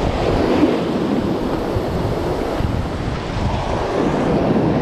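Surf breaking and washing up onto a sandy beach, a steady rushing noise, with wind buffeting the microphone.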